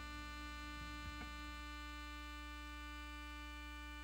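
Background music: one long held chord sounding steadily over a low hum.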